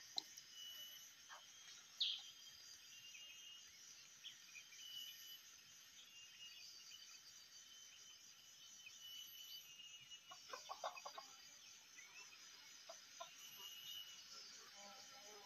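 Red junglefowl clucking softly in short runs, about ten seconds in and again near the end, over faint forest ambience with steady high insect buzzing and a single sharp bird chirp early on.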